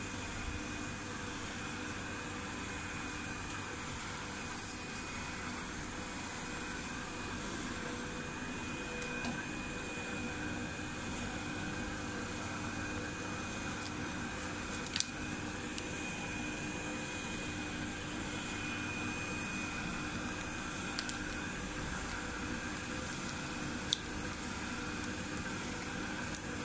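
Continuous band sealer running: a steady hum of its motor and fan with a few faint steady tones. A few sharp clicks stand out, at about fifteen seconds and twice near the end.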